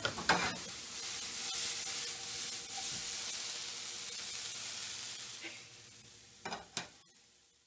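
Mushrooms, red peppers and onions sizzling as they sauté in a frying pan, with a few sharp knocks (one just after the start, two near the end). The sizzle fades away near the end.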